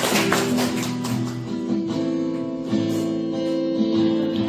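Acoustic guitar music: ringing strummed chords that change a couple of times.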